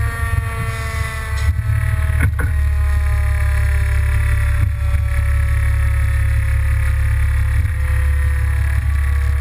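Fire engine's mechanical siren winding down, one pitched whine falling slowly and steadily, over the heavy low rumble of the truck's idling diesel engine. A few sharp clicks and knocks come about two seconds in and again near the middle.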